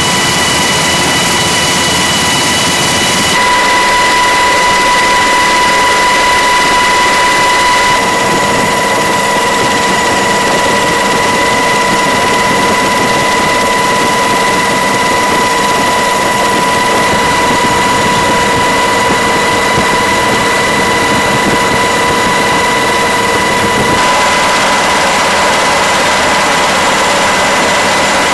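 Steady turbine aircraft engine noise: a dense rushing sound with a high, even whine over it, loud throughout. Its tone shifts abruptly three times.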